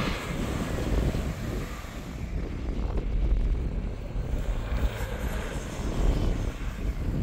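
A Jeep driven hard on beach sand, its engine at full throttle, heard through wind rumbling on the microphone.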